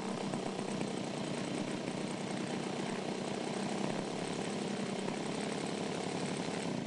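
Small propeller engine of an unmanned research aircraft running steadily, then dropping away sharply near the end.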